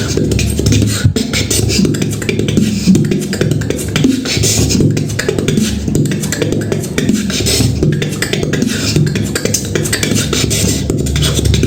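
Human beatboxing: a continuous run of fast mouth-made kicks, snares and clicks over a steady bass sound.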